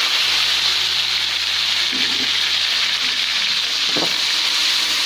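Sliced tomatoes frying in hot oil in a wok: a steady sizzling hiss, with a metal spatula stirring them.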